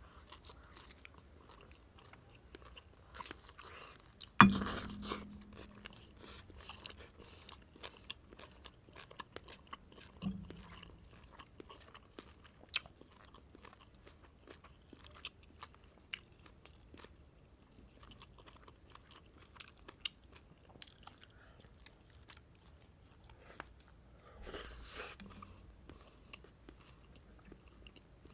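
Close-up eating sounds of a person eating beef noodle soup: wet chewing and small mouth clicks. A loud sharp knock with a short low ring comes about four seconds in, a softer one near ten seconds, and a brief rush of noise comes near the end.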